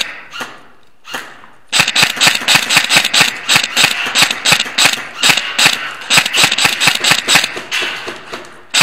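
Airsoft gun firing a rapid string of shots, about five or six sharp cracks a second, starting about two seconds in and running for some six seconds.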